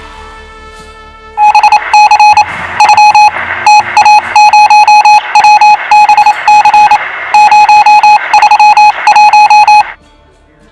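Electronic alarm-clock beeping: loud, rapid bursts of the same high beep repeating for about eight seconds, then cutting off suddenly.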